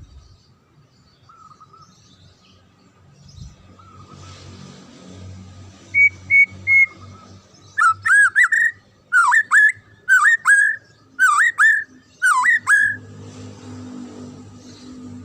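White-rumped shama (murai batu) singing: three short high notes about six seconds in, then five loud whistled phrases about a second apart, each swooping down and back up.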